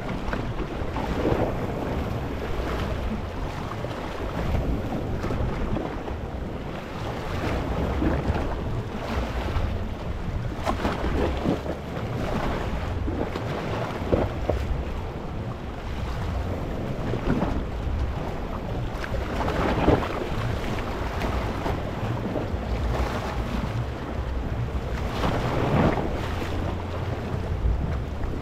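Small sea waves washing over a rocky shore, a steady rush with a splash every few seconds as each wave breaks. Wind buffets the microphone with a low rumble underneath.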